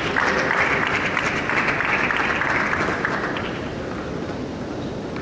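Spectators applauding, the clapping dying away about three seconds in to a lower background murmur.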